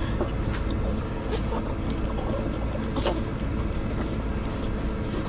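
Teardrop camper's air conditioner running with a steady hum, with a few faint clicks and rustles as a small dog moves about on the bedding.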